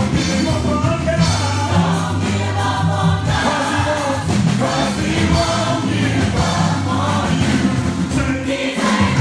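Live gospel music: a choir singing over instrumental accompaniment with a strong bass line.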